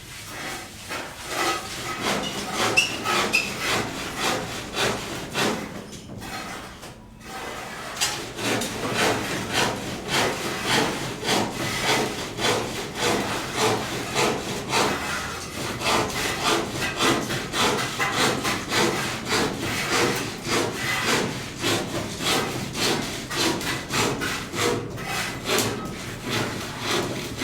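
Rhythmic back-and-forth rubbing strokes of a hand tool, irregular at first, then settling into a steady rhythm of about three strokes every two seconds.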